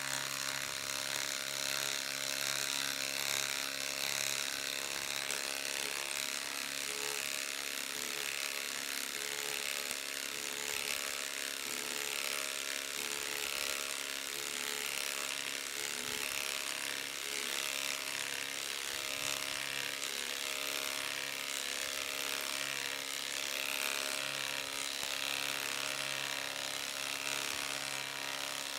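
Ryobi HP 3/8-inch cordless impact wrench hammering steadily without a break as it drives a long lag screw into a wooden stump.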